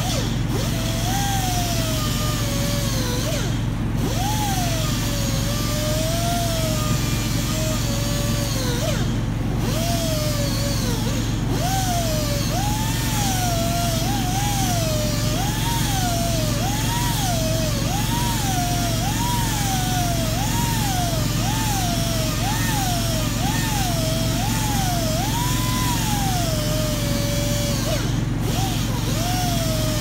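Air-powered hand tool whining against the rim of a BMW alloy wheel during rim repair, its pitch dipping and rising about once a second as it is pressed and eased on the metal. A steady low hum runs underneath.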